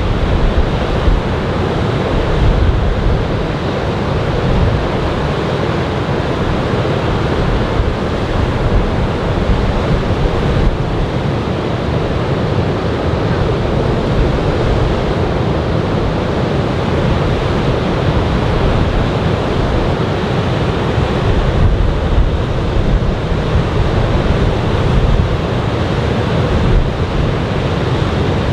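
Surf from a typhoon swell breaking along the beach: a continuous, unbroken wash of waves, with wind buffeting the microphone in a low rumble.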